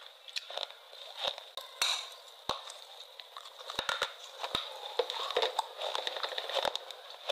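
Close-miked chewing of fruit: irregular crisp crunches and wet mouth clicks.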